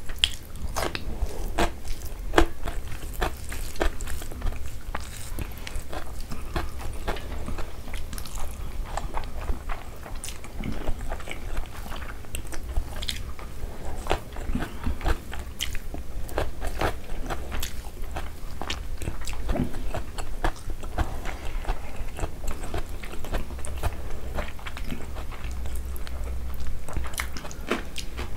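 Close-up eating sounds of two people eating rice and curry by hand: chewing and biting with irregular crunches and many short, sharp mouth clicks.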